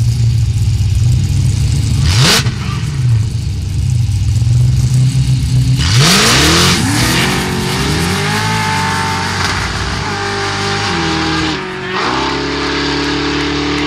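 Two Ford Mustang street-race cars idling at the line, one giving a quick rev about two seconds in. About six seconds in they launch with a rush of noise, and the engines climb in pitch and drop back at each gear shift as they pull away.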